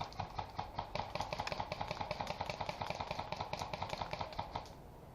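Rapid, evenly spaced clicks of airsoft fire on full auto, speeding up about a second in and stopping abruptly near the end.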